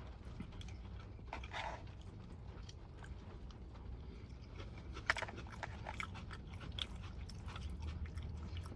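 A person chewing and biting food close to the microphone, with scattered small wet smacks and clicks. A low steady hum runs underneath.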